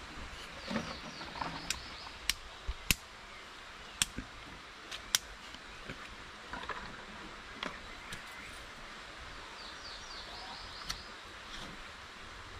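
A handheld lighter struck again and again, about eight sharp clicks at uneven intervals, as it struggles to light wet kindling. Under it runs a steady hiss of damp forest ambience.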